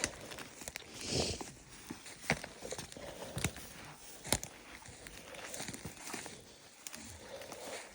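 Rustling, with a few sharp snaps and knocks, of people moving through brush and dead wood.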